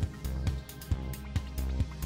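Background music with a steady drum beat, about two beats a second, over sustained bass notes.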